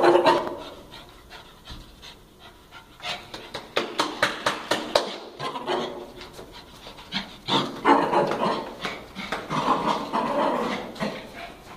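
Hard panting in breathy bursts, over a rapid run of thumps and clicks from running footsteps and the phone being jostled.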